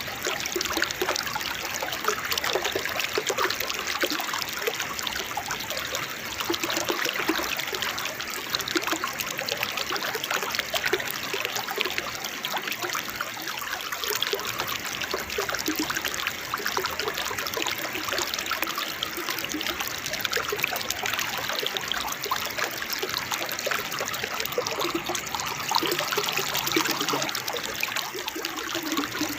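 Small waterfall splashing and trickling over rocks: a steady, unbroken babble of running water.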